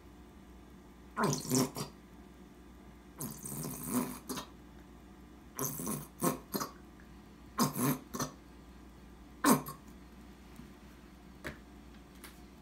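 Plastic squeeze bottle of ranch dressing being squeezed upside down, sputtering and spurting air and dressing in about five separate bursts, with a couple of faint clicks near the end.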